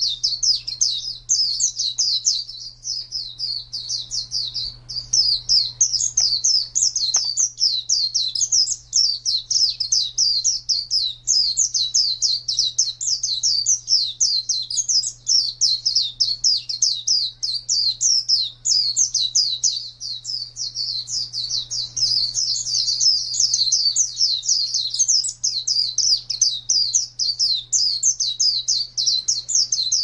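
White-eye (Zosterops, "pleci") song: a fast, unbroken stream of high chirps, each quickly falling in pitch, several a second and running on without a pause.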